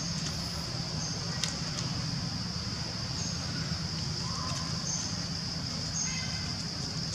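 Forest ambience: a steady high-pitched insect drone over a low rumble, with short high chirps every second or two and a brief squeak about six seconds in.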